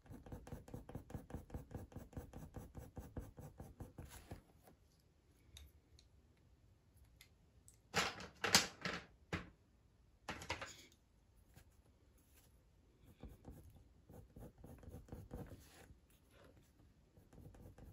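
Coloured pencil scratching across hot-press watercolour paper in quick, hard-pressed back-and-forth shading strokes, several a second. The strokes stop about four seconds in, with a few louder knocks and rustles in the middle. Fainter strokes start again later on.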